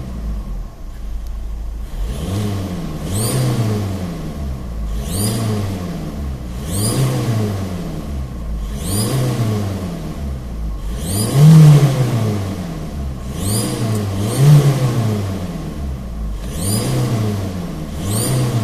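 Seat León's turbocharged engine revved again and again, about one blip every two seconds, its note rising and falling each time. Most revs carry a brief, very high rising whistle from the turbo, the whistle the owner traced to play in the wastegate valve rod.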